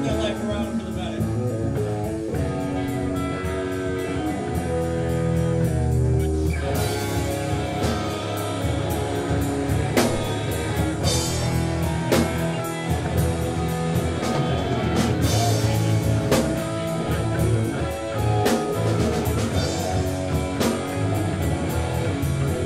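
Metal band playing live: amplified electric guitars and bass play a riff, and the drum kit with crashing cymbals comes in fully about six and a half seconds in.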